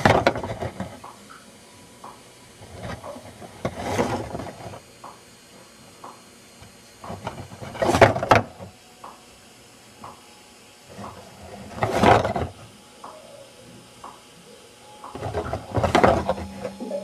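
Mechanical clattering: a louder rattling clunk about every four seconds, with light ticks about twice a second in between.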